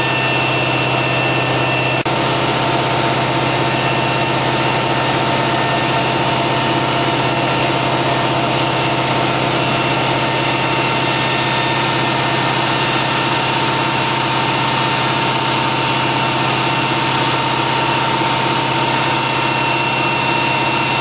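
A fire engine's motor running steadily, pumping water to the hoses: a continuous low drone with a faint steady whine above it.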